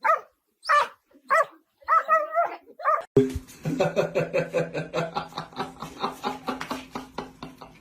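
A dog barking, about five short barks in the first three seconds. Then a different sound starts abruptly: a steady low drone with a fast, even pulse.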